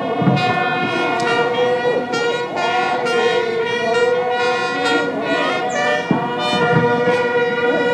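Ceremonial wind music: one long note held without a break over a steady drone, its overtones wavering, with a few low drum thuds.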